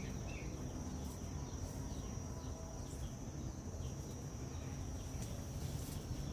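Steady high-pitched insect trill over a low background rumble, with a few faint clicks and rustles from hands picking pepper elder stems.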